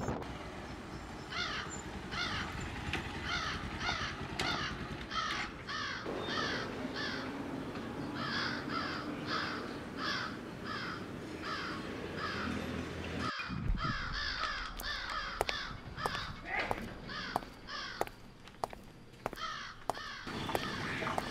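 Crows cawing over and over, about two calls a second. About 13 seconds in the background cuts abruptly, and sharp ticks join the calls from then on.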